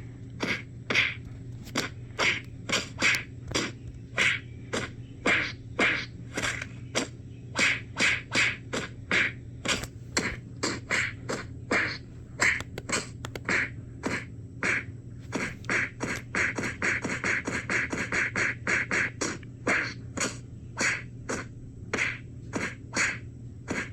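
A long run of punch sound effects: short, sharp smacks about two a second, speeding up into a rapid flurry a little past the middle, over a steady low hum.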